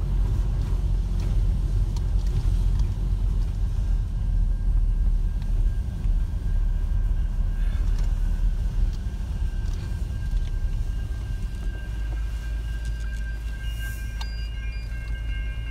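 Car engine and road noise heard from inside the cabin as the car drives and then settles to a steadier idle hum. About twelve seconds in, a steady high ringing starts and holds: the level crossing's warning bells.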